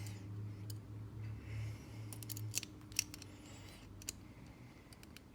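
Sharp metallic clicks from handling a small pin tumbler cabinet lock and its key, a few in quick succession a little over two seconds in and single ones later, over a low hum that stops about two and a half seconds in.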